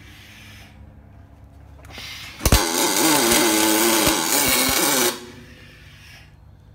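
Pulsed MIG welding arc on aluminum from a Miller XMT304 with an Optima pulse box, under pure argon: a short test burst of about two and a half seconds that opens with a sharp crack and then runs as a steady buzzing hiss. It is a test weld made to find the wire speed.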